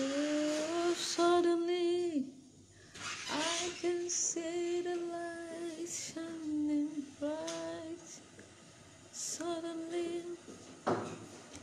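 A woman singing a worship song unaccompanied, in several phrases of long held, wavering notes with short pauses between them.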